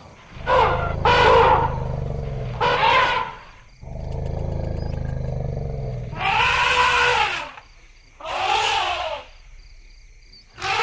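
Elephants calling: about five loud roaring, trumpeting calls whose pitch arches up and falls away, three short ones close together in the first three seconds and two longer ones in the second half, over a low steady rumble.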